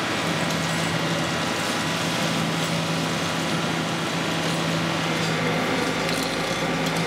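Electroplating shop machinery running: a steady hiss and rumble with a constant low hum.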